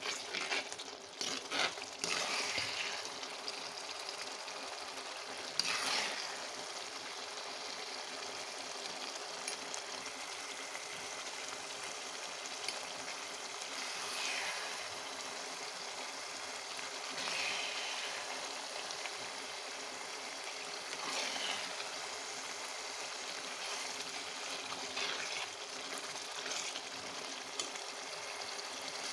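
Thick spinach-and-garlic gravy simmering in a clay pot: a steady bubbling, sizzling hiss, broken now and then by short scrapes of a metal spatula as it is stirred.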